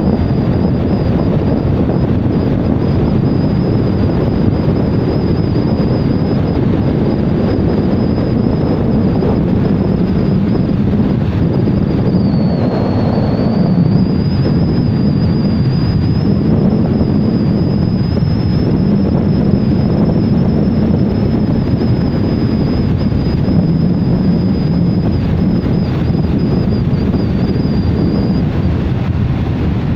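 Steady wind rush on the microphone with the road noise of a vehicle driving at speed. A thin high whine runs over it, wavering slightly in pitch, and stops near the end.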